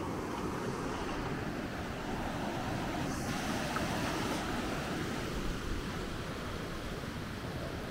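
Steady rushing of moving water, an even noise that holds at much the same level throughout.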